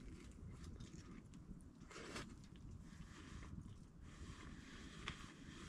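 Faint chewing of pizza with small mouth clicks and a short rustle about two seconds in, over a low rumble.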